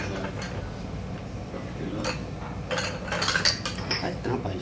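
Scattered light clinks and knocks of tableware, a handful of short sharp sounds starting about two seconds in, over a steady low room hum.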